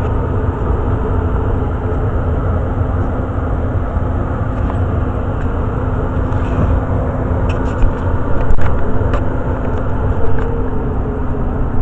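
Very old Day and Night natural-draft gas furnace running with its blower fan on: a steady low rumble of moving air with a steady hum. A few light knocks come about eight to nine seconds in.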